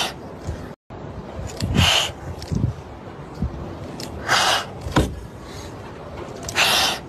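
Two frightened kittens hissing defensively: three short hisses about two and a half seconds apart, with a brief cut to silence about a second in.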